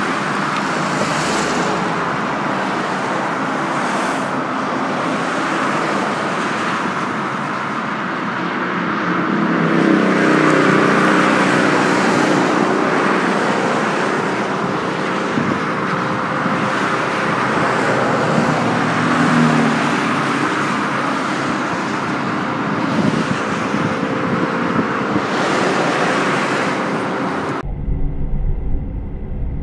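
Multi-lane highway traffic: a continuous hiss of tyres and engines that swells and fades as cars and trucks pass, loudest around ten seconds in. It cuts off abruptly near the end.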